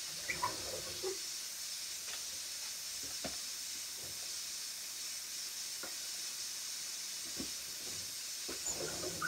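Steady high hiss with a few faint, scattered knocks and clinks of someone handling things in a kitchen.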